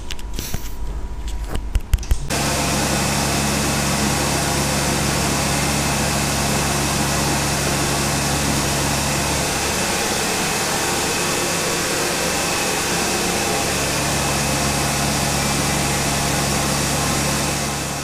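Kärcher HD 7/11 high-pressure washer running steadily under load, its pump holding about 110 bar: a steady hum with an even hiss. It starts abruptly about two seconds in, after a couple of seconds of knocks and handling noise.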